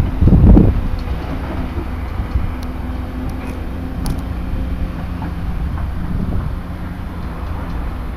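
Diesel engine of a Hyundai 360 LC-7A crawler excavator running steadily while the machine works, a low drone with a faint steady hum in it. A loud gust of wind hits the microphone in the first second.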